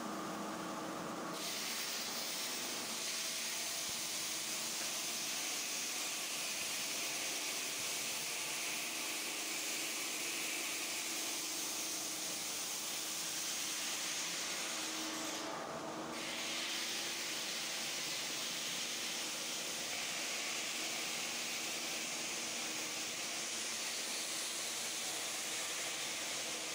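Steady hissing noise of stone-cutting machinery in a granite workshop. The high hiss dips briefly near the start and again about sixteen seconds in.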